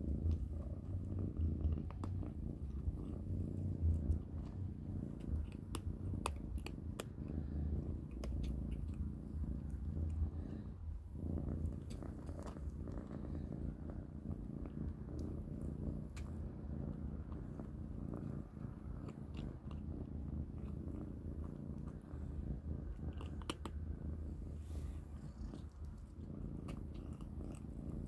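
Kittens purring steadily while they eat, with scattered crunchy clicks of chewing.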